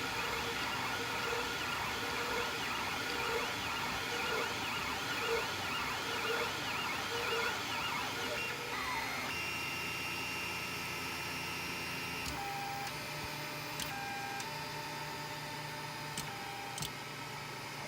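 Anycubic Kossel delta 3D printer printing, its stepper motors whining in a repeating rise and fall of pitch as the head traces circles for the cylindrical rod. About halfway through the whine turns to steady tones that change pitch in steps, with a few short clicks near the end.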